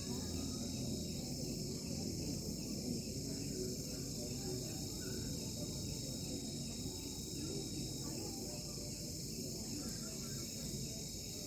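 Crickets chirping in a steady chorus, a continuous high-pitched trill over a low background rumble.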